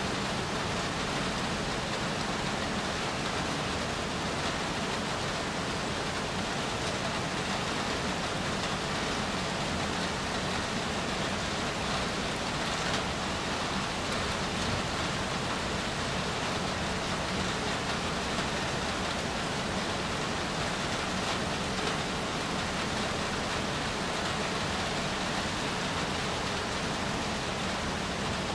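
Moderate rain falling steadily, an even, unbroken hiss.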